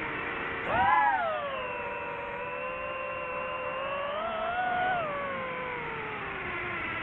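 DJI FPV drone's motors and propellers whining. The pitch jumps sharply and louder about a second in, settles, climbs again near five seconds, then slides slowly down as the throttle changes.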